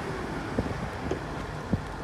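Heavy diesel earthmoving machinery running steadily, with three short knocks over about a second, and wind buffeting the microphone.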